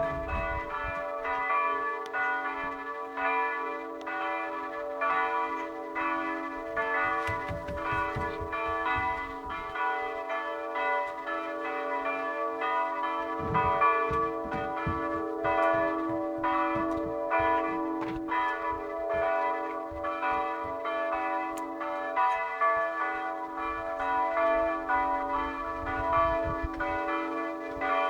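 Church bells ringing continuously, many bells struck in quick succession so their tones overlap and ring on.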